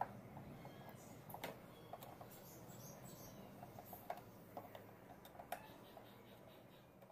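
Faint scattered clicks and taps of a screwdriver and hands working on the plastic panels around an electric scooter's battery compartment, with a few sharper knocks among them.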